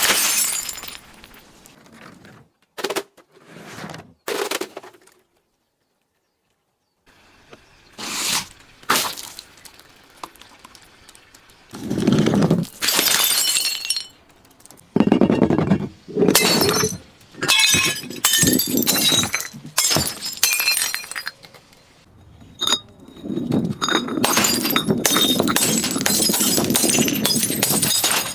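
Glass bottles being smashed and crushed: a string of separate crunching, shattering breaks with clinking shards, some in quick succession, with a long stretch of continuous crunching near the end.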